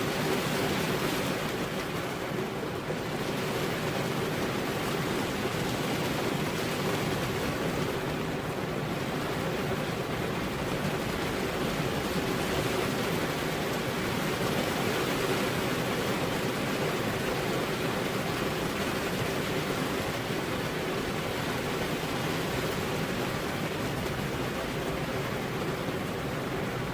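Rain falling steadily, an even hiss with no single drops or thunder standing out.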